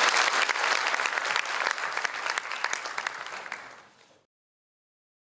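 Audience applauding, fading away and stopping about four seconds in.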